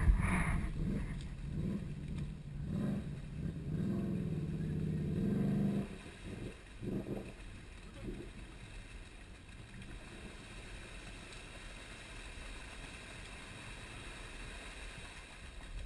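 A distant ATV engine revving unevenly as the quad churns through a deep, flooded mud hole. About six seconds in the engine drops away, leaving only faint steady background noise.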